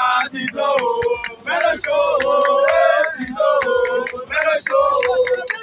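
A group of young voices singing a chant together, holding long notes, over sharp percussive beats that keep an even rhythm.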